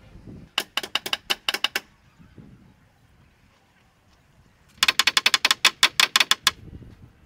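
Hammer striking the wooden poles of a pole frame in quick taps, in two bursts: about eight strikes about half a second in, then a faster run of fifteen or more near the end.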